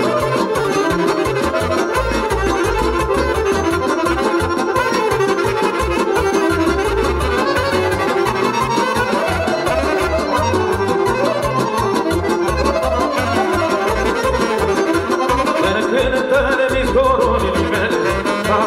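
Romanian folk band playing an instrumental passage without singing, with accordion and wind instruments over a pulsing bass.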